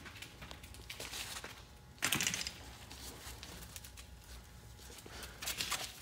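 Light handling noises from a truck's drum brake shoe assembly being worked on by hand: rustling and small metal knocks, with a louder scraping clatter about two seconds in.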